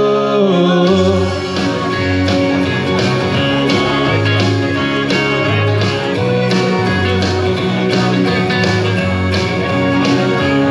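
Instrumental break in a country song: guitar-led band backing with a steady drum beat, the sung note before it trailing off in the first second.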